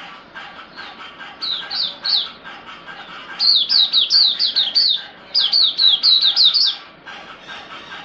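Caged Oriental white-eye singing in three bouts of quick, high, down-slurred notes: a short phrase of three notes, then two longer rapid runs about three and five seconds in.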